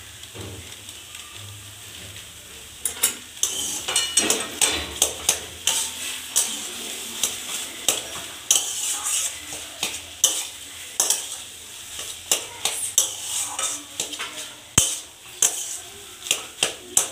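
Metal spatula stirring and scraping a dry potato-and-soybean curry in a metal kadai, with a light sizzle of the frying. From about three seconds in, the spatula scrapes and clinks against the pan about twice a second.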